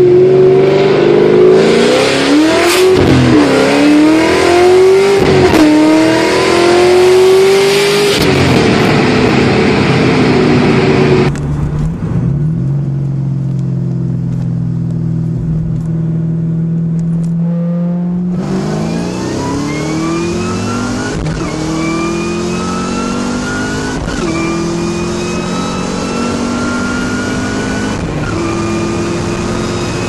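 Supercharged 2003–04 SVT Cobra 4.6-litre V8 at full throttle with a Whipple twin-screw supercharger, its whine over the engine as the revs sweep up and down. About eleven seconds in, a Kenne Bell-supercharged Cobra takes over: a steady drone, then from about eighteen seconds the supercharger whine climbing with the revs through three upshifts.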